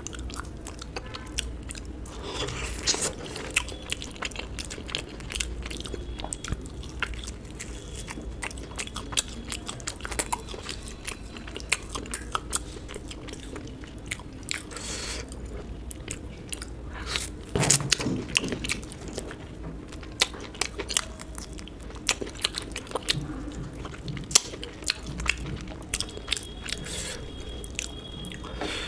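A person chewing and biting food close to the microphone, with a steady run of short, sharp crunches and clicks; a louder cluster of bites comes just past the middle.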